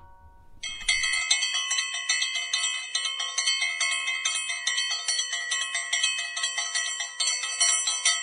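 Background music: a bright chiming, bell-like tune of quick repeating notes, starting about half a second in.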